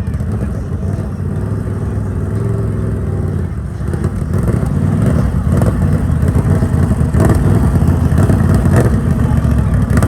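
ATV engine running under throttle, getting louder about four seconds in.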